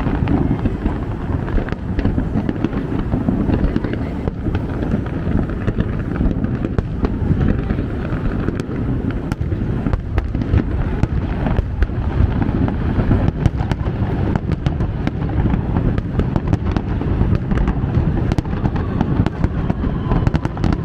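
New Year fireworks display going off continuously: a dense, unbroken rumble of bursts with many sharp crackles over it, loud throughout.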